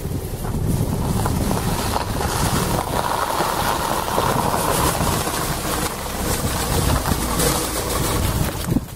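Peugeot estate car driving slowly past on a slushy, snow-covered road while towing a trailed salt spreader: steady engine and tyre noise, with wind buffeting the microphone.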